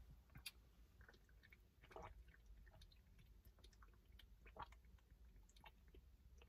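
Near silence, with faint swallows and small mouth sounds as coconut water is drunk straight from a carton.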